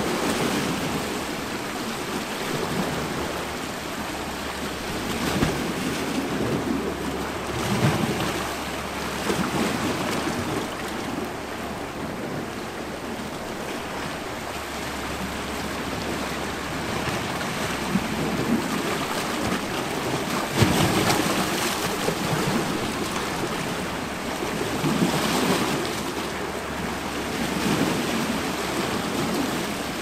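Sea waves washing and splashing against a rocky shore: a continuous wash that surges every few seconds as a wave breaks over the rocks.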